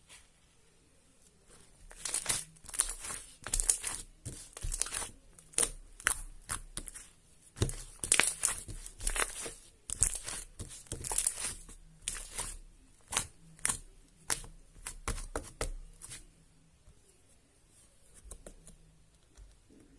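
Glitter slime being squished and stretched by hand, giving bursts of sticky crackling and popping. It quiets down after about 16 seconds.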